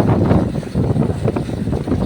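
Wind buffeting the microphone: a loud low rumble with irregular gusts.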